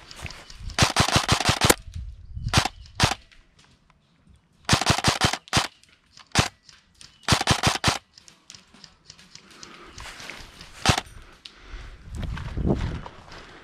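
Airsoft rifle firing three short rapid bursts, with single shots between them and one more single shot later, each shot a sharp crack.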